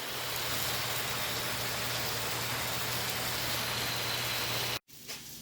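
Steady sizzling hiss of a tomahawk steak searing on a hot Blackstone griddle, with a fan's steady hum underneath. It cuts off abruptly near the end.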